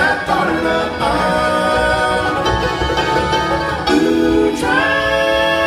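Live bluegrass band playing, with several voices singing long held notes in harmony that move to new chords a few times. Fiddle, banjo and guitars play under the voices.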